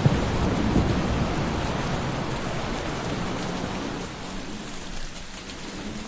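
Thunderstorm: steady rain with a low rumble of thunder that fades away over the first few seconds, leaving softer rain.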